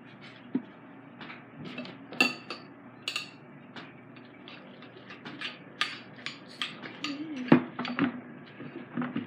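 Irregular clinks and knocks of utensils and containers against a counter, from mixing slime and tipping a plastic Tide detergent bottle. The sharpest knocks come about two seconds in and about seven and a half seconds in.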